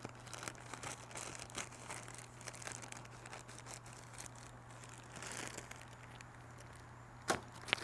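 Plastic poly mailer bag crinkling and rustling as it is cut open with scissors and pulled apart by hand, with two sharp clicks near the end.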